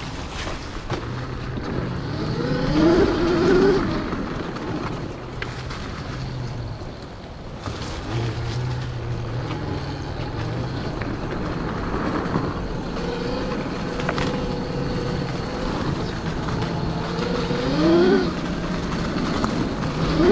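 Electric motor of a Kawasaki KX 85 converted with a Wired Off-road GK-85 kit, whining as the bike is ridden, its pitch rising as it accelerates about three seconds in and again near the end.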